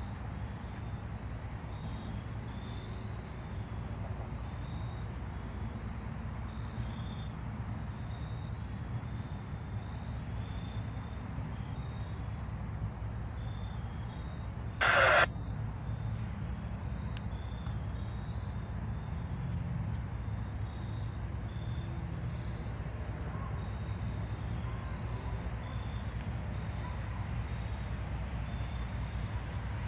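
Norfolk Southern diesel freight locomotives rumbling steadily as the train rolls slowly up, with one short, loud burst of sound about halfway through.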